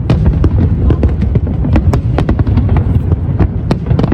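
Fireworks exploding: many sharp bangs in quick, irregular succession over a steady low rumble.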